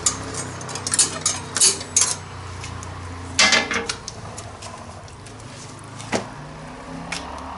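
Metal clinks and clanks, a quick run of about five in the first two seconds, a short cluster mid-way and two single knocks later, as gear is handled against a stainless-steel rotisserie basket grill, over a low steady hum.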